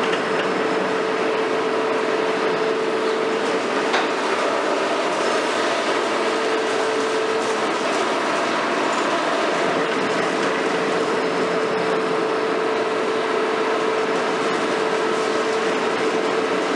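Long-reach demolition excavator (KMC 400 on a Hitachi 350 base) running, a steady mechanical drone with a constant whine that drops out briefly twice. A single knock about four seconds in.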